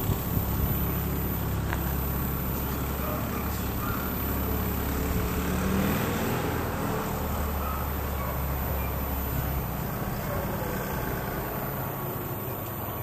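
Steady low rumble of a motor vehicle's engine running close by, with a wash of outdoor traffic noise; the low rumble eases off about ten seconds in.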